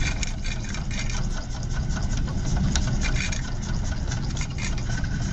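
Small steam engine running steadily at speed, a fast, even mechanical rhythm.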